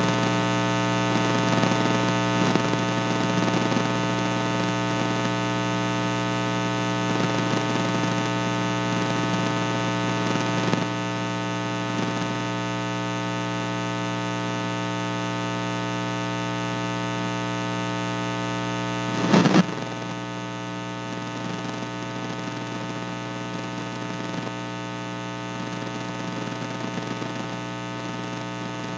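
Steady electrical mains hum, a buzz with many even overtones, left on the recording with no speech over it. It drops slightly in level about eleven seconds in. A brief loud burst of noise comes about nineteen seconds in, after which the hum goes on a little quieter.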